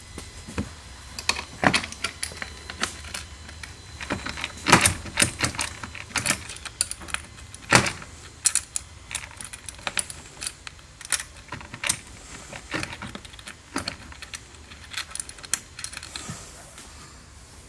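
Irregular metallic clinks, taps and rattles of quarter-20 seat bolts being started and finger-tightened by hand into a golf cart's seat frame, with louder knocks about five and eight seconds in.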